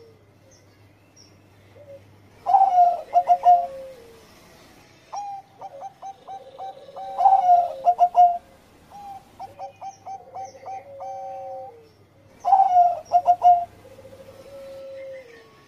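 Bangkok-strain zebra dove cooing, about four repeated song phrases, each a run of quick clipped notes followed by long held coos that fall in pitch at the end. Faint high chirps of other small birds sound in the background.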